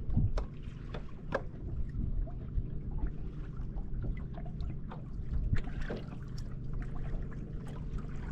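Fishing boat moving slowly on choppy water: a steady low hum from its electric trolling motor, with small waves slapping the hull in irregular knocks.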